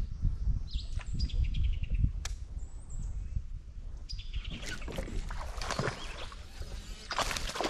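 Songbirds calling several times, each call a high note followed by a quick falling run of chirps, over a steady low wind rumble on the microphone. Near the end a louder rushing, splashing burst of water and kayak noise.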